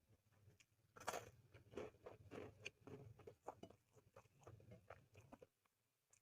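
Close-up eating sounds: mouth smacking, chewing and biting on chicken and corn rice, with irregular wet clicks and crunches that stop near the end.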